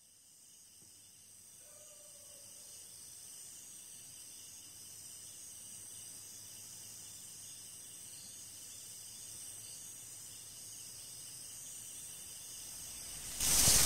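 Faint, steady insect chorus of thin high tones, fading in slowly. Near the end a loud rushing noise cuts in suddenly.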